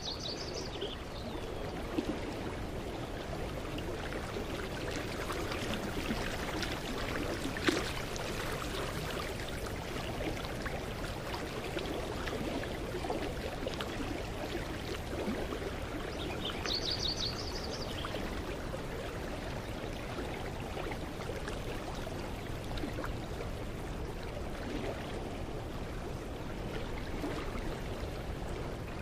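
Mountain creek flowing steadily. A short, rapid bird trill comes about seventeen seconds in, and a single sharp click near eight seconds.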